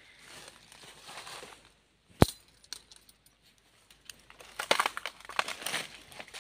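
Footsteps crunching and rustling through dry leaf litter, with one sharp snap a little over two seconds in.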